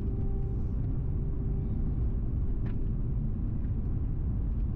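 Steady low road rumble of a car driving at road speed, tyre and engine noise heard from inside the cabin.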